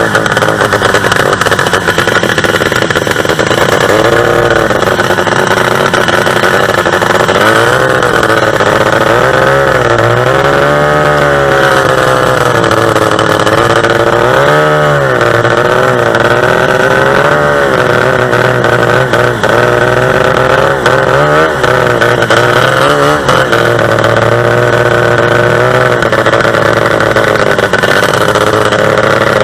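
Two-stroke racing engine running steadily, revved up and back down in a series of surges, the biggest about a third of the way in, with shorter ones around the middle and later.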